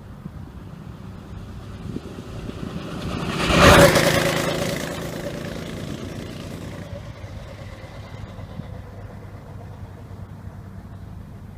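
Go-kart's Honda GX160 single-cylinder four-stroke engine at full throttle passing by. It builds to a loud peak about four seconds in, then fades away over the next few seconds.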